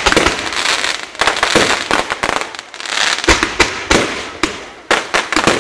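Fireworks display going off: many sharp bangs in quick succession over a steady hissing crackle, easing briefly twice before picking up again.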